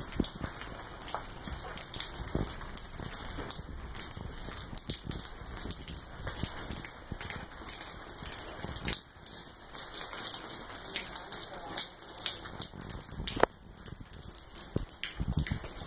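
Footsteps crunching over grit and rubble on a ruined concrete floor, heard as dense, irregular crackling and scattered clicks.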